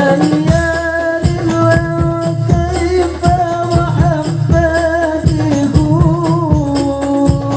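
A male voice singing an Islamic sholawat melody through a microphone, holding long wavering notes, over hadroh frame drums (rebana) beating a steady rhythm.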